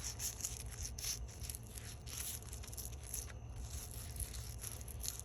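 Sandpaper rubbed in repeated strokes over the metal shaft of a washing machine suspension rod, roughing up its surface: a scratchy rasp roughly twice a second, over a steady low hum.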